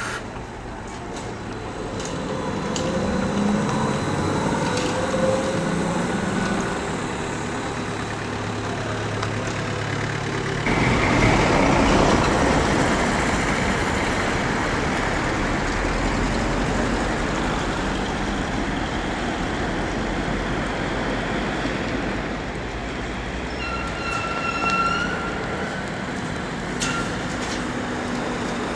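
City street traffic: road vehicles passing by. About eleven seconds in the noise turns suddenly louder, and near the end comes a brief high-pitched squeal.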